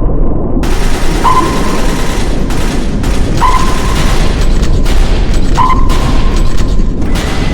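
Loud battle sound effect: a dense rumble with booms and bursts of gunfire. A short beep repeats about every two seconds.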